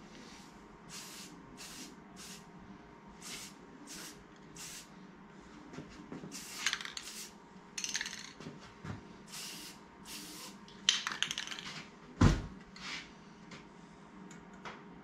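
Aerosol can of brass metallic spray paint hissing in a dozen or so short bursts. One thump late on.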